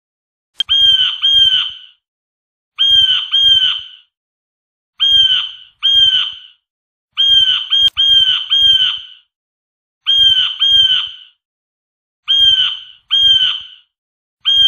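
Blue jay giving its harsh "jay" call, mostly in pairs of short calls repeated about every two seconds.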